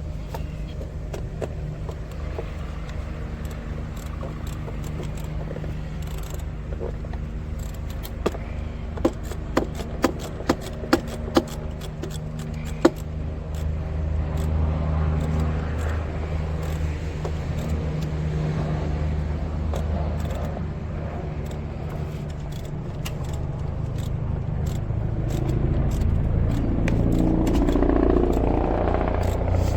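A steady low mechanical hum, with a run of about six sharp metallic clicks in the middle like tools knocking on metal.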